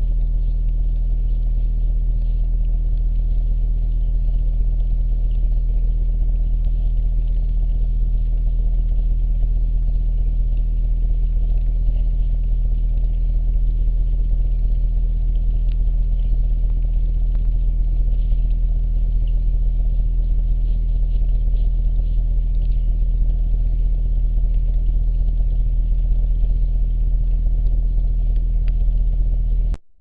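Steady electrical hum with a stack of evenly spaced overtones, the recording self-noise of a Bushnell trail camera; it cuts off abruptly near the end.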